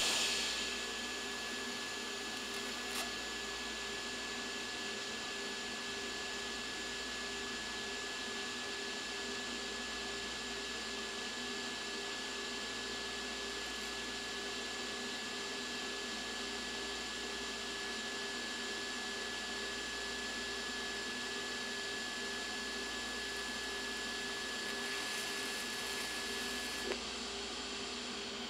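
TIG welding arc striking with a sharp crack, then burning steadily as a nickel is welded to mild steel plate: an even hiss with a thin high whine. The arc cuts off suddenly near the end.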